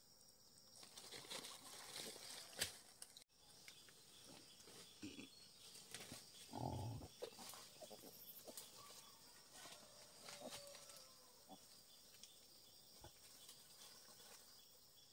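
Mostly near silence, with faint rustling in leaf litter and one short low grunt from a wild boar about seven seconds in.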